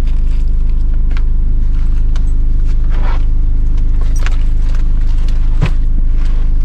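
A loud, steady low mechanical hum with a few light clicks and taps, and a single knock near the end.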